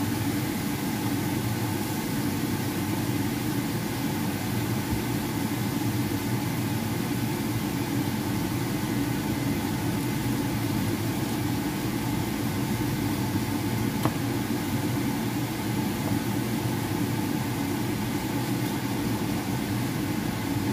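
Steady machine hum that holds an even level throughout, with one faint click about fourteen seconds in.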